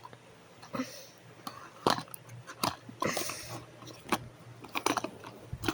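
A small toy's packaging being opened and handled by hand, heard as scattered clicks and taps with a few brief rustles.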